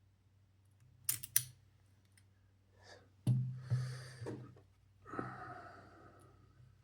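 Small handling sounds of a lock cylinder being taken apart on a table: two sharp clicks about a second in, then a few knocks and thuds, with breathy exhales between them.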